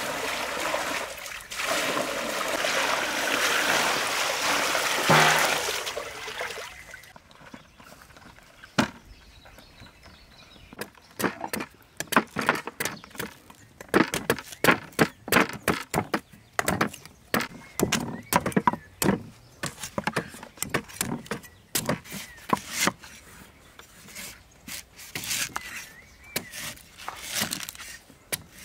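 Water poured from a metal basin splashing over a basket of young coconuts for the first six seconds or so. From about eight seconds in, cleavers chopping and shaving the green husks of young coconuts on wooden chopping blocks in quick, irregular strikes.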